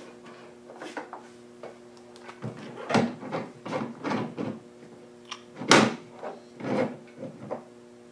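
Irregular knocks, clicks and short sliding scrapes from handling parts of a horizontal router table, with the loudest knock just before six seconds in. A steady electrical hum runs underneath. The router is not running.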